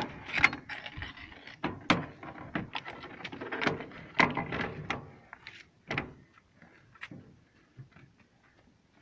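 Metal parts of a 14.5 mm anti-aircraft heavy machine gun being handled and fitted during reassembly: irregular sharp metallic clicks and clanks, thick for about six seconds and then thinning out.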